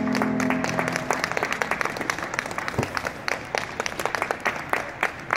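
Scattered clapping from a small audience, the separate claps thinning out toward the end, over the last of the dance music, which fades out about a second in.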